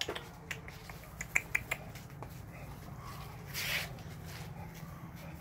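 A few sharp clicks in the first two seconds, then a short, breathy snuffle about three and a half seconds in as an American Bully sniffs right at the microphone.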